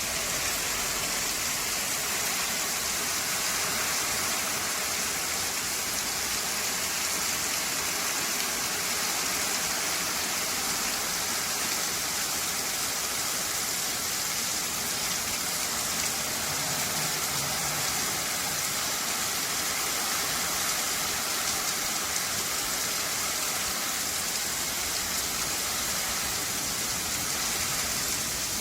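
Steady rain falling on a bamboo grove, an even wash of noise without let-up.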